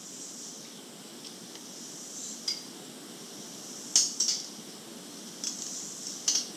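A spoon clinking several times against a cereal bowl, the sharpest clink about four seconds in, over the steady hiss of an old cassette tape heard through earbuds.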